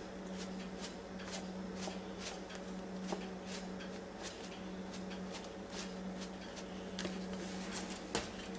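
Old Bay seasoning shaken from its metal can onto raw steaks: soft, rhythmic rattling shakes, about two or three a second, that stop about seven seconds in. A steady low hum runs underneath.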